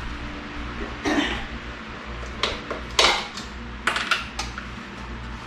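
Knife cutting raw fish fillets into strips on a ceramic plate, the blade clicking and scraping against the plate about five times, the sharpest click about three seconds in. A steady low hum runs underneath.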